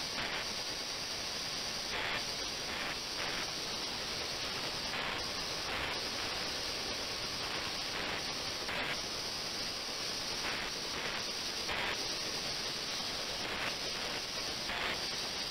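Steady hiss of an ultrasonic cleaning tank running its 28 kHz and 72 kHz transducers at 450 W, the audible noise of cavitation in the water. Short, slightly louder swells come at irregular intervals of a second or two.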